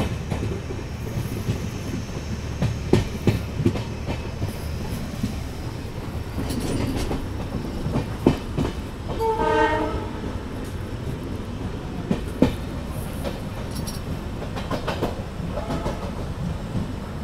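Passenger train running, heard from inside the coach: a steady low rumble of the wheels with sharp clacks over the rail joints every few seconds. A short tone sounds about halfway through.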